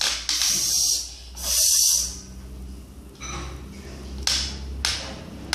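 Three short hissing sounds in the first two seconds, then two light knocks of plastic toy trucks being handled, about four and five seconds in.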